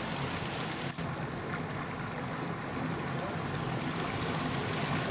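Small rocky hill river flowing over stones and a low cascade: a steady rush of water, with a momentary dip about a second in.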